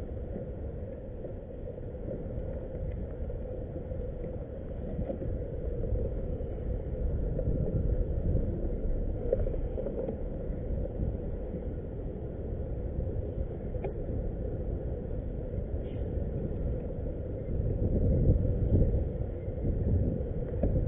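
Steady low rumble of wind and water around a small fishing kayak on open water, with a faint steady hum, growing louder near the end.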